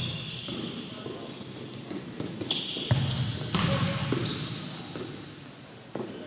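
Futsal being played on an indoor court: sneakers squeaking briefly several times, the ball kicked sharply about three seconds in and again near the end, and players' voices calling, all echoing around a large hall.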